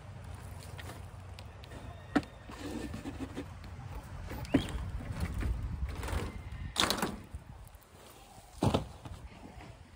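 Lawn mower grass-catcher bag handled against the chicken coop's frame: several knocks and bumps, the loudest two in the second half, with rustling between them.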